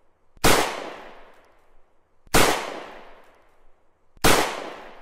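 Three loud bangs, evenly spaced about two seconds apart, each ringing out in a long fading tail.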